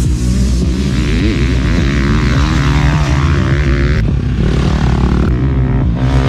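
Off-road motorcycle engine revving, its pitch rising and falling as the throttle is worked.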